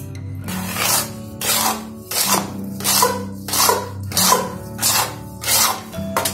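Metal spoon scraping and beating thick rice cake batter in a steel bowl: about eight rasping strokes at an even pace, roughly one every two-thirds of a second. Background music with steady tones runs underneath.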